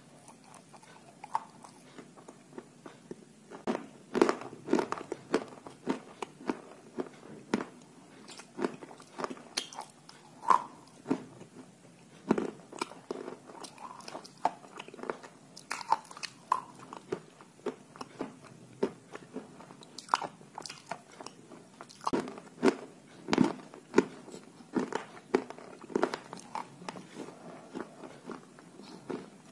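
A person biting and chewing dry pieces of white chalk: a steady run of sharp, irregular crunches, several a second, broken by short pauses.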